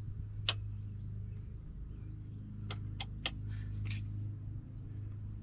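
Light metallic clicks of a drum brake return spring and shoe hardware being handled and hooked in by gloved hands: one click about half a second in, then a few more close together around three to four seconds in, over a steady low hum.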